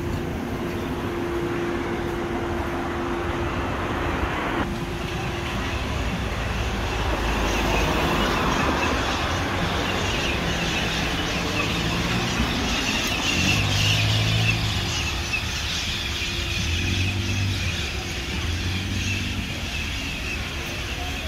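City street traffic: car and bus engines running and passing, swelling and fading as vehicles go by.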